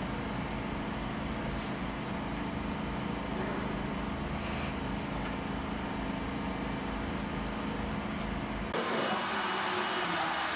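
Steady low hum and rumble with a few held low tones. About eight and a half seconds in, it cuts off abruptly to a brighter, hissier room background.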